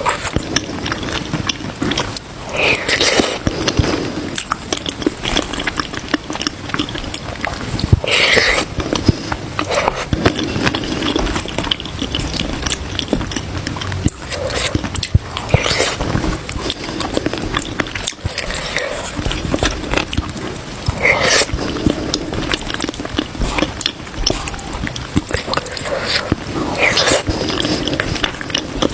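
Close-miked eating sounds: continuous chewing with a louder burst every five or six seconds.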